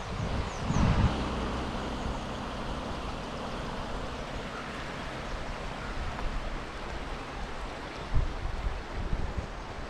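Steady rush of a river flowing over shallow rapids, with wind gusts buffeting the microphone about a second in and again near the end.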